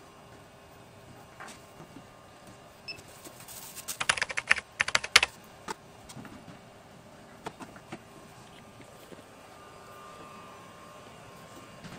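Plastic clicking and rattling as a power adapter and its cable plugs are handled and pushed into sockets: a rapid flurry of clicks about four seconds in, with a few single clicks before and after.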